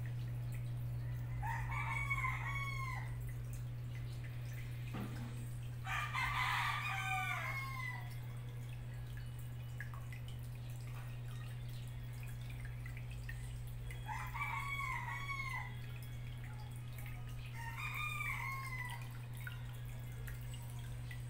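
Steady low hum of the aquarium's water pump, with a bird calling loudly four times over it, each call an arching cry of one to two seconds.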